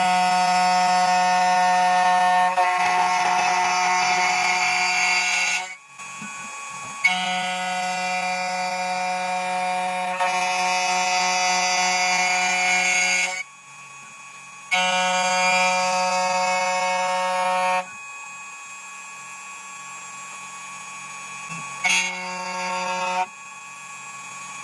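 CNC key cutting machine milling a key blank: a steady high motor whine with a hiss of cutting. It comes in runs of a few seconds that stop and start abruptly, with a quieter stretch and a short run near the end.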